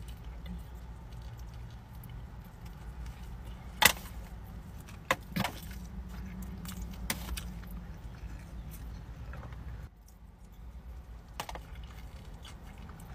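Someone eating a wrapped burrito: biting and chewing, with a few sharp crinkles of the paper wrapper, the loudest about four seconds in. Under it is a steady low hum inside a car's cabin, which drops away about ten seconds in.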